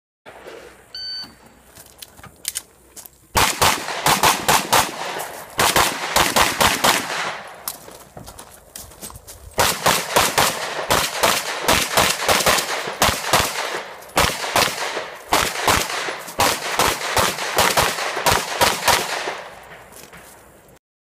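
A shot-timer start beep about a second in, then rapid strings of pistol shots from an open-class compensated race gun, each shot ringing off the range. The firing breaks off for about a second and a half in the middle, then resumes and ends shortly before the close.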